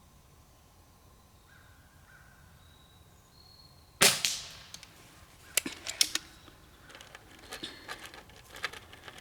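Spring-piston breakbarrel .22 air pistol firing once about four seconds in: a single sharp crack with a short ring-out. A few sharp clicks and small knocks follow over the next few seconds.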